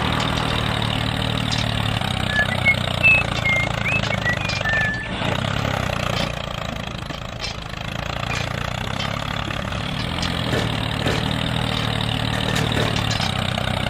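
A tractor-type engine running steadily with a low, even hum. A few short high chirps come a few seconds in.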